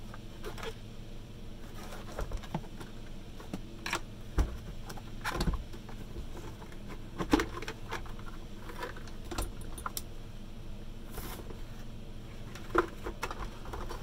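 Irregular clicks, knocks and rattles as a Henry vacuum cleaner's plastic motor housing is prised apart with a screwdriver and lifted off, with a few sharper knocks through the middle.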